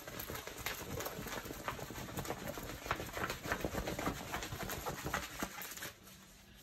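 Small plastic bags of diamond-painting drills being handled: steady rustling with many light clicks, dying down about six seconds in.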